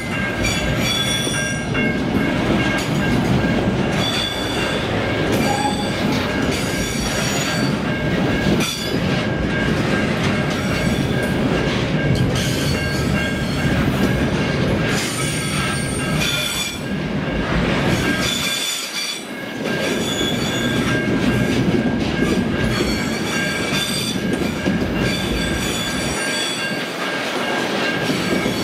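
Loaded container flatcars of a freight train rolling past close by: a steady rumble of steel wheels on rail, with high-pitched metallic wheel squeal that comes and goes every few seconds.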